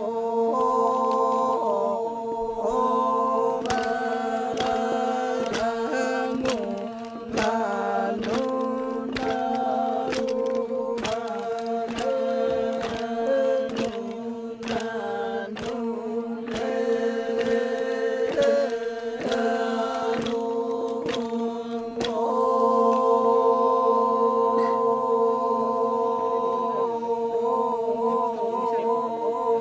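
Group of men chanting a Toraja ma'nimbong song: a steady held drone with a melodic line moving above it, crossed by many sharp clicks.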